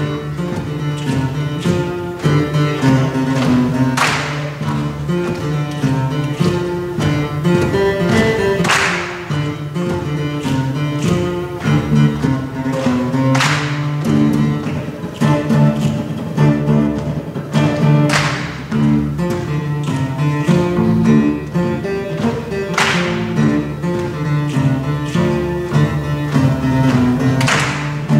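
Live instrumental introduction on guitars and other instruments, a steady repeating chord pattern with a bright, sharp accent about every four and a half seconds, before any singing comes in.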